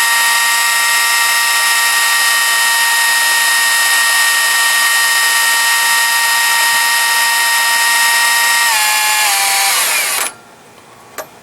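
Electric drill running at a steady high whine, turning a GM alternator through a hex key with the headlights on as an electrical load. About nine seconds in, its pitch drops in steps and winds down, and it cuts off suddenly a little after ten seconds, followed by a click.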